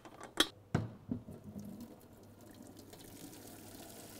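Boiled pasta being drained in a sink: a few knocks of the pot and colander in the first second, then a steady rush of water pouring off.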